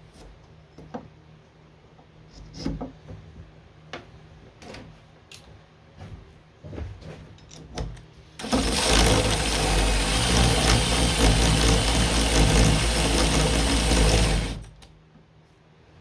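A few light knocks and clicks of tool handling, then an electric drill runs steadily for about six seconds, starting about halfway through and cutting off near the end, as it bores into the piano's wood.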